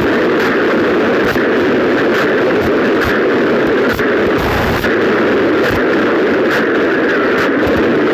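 Loud, harsh, distorted noise like static, steady throughout, with irregular crackles and no clear tune or voice.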